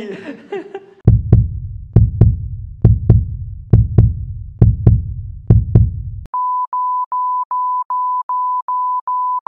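Electronic intro sound design: a run of sharp, heavy bass hits, often in pairs, each trailing off in a low boom. About six seconds in it switches to a steady electronic beep, one pitch, pulsing about three times a second.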